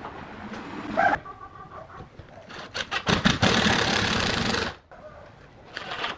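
An electric power tool running in short bursts: a brief whine about a second in, then about two seconds of loud running that cuts off sharply, and it starts again near the end.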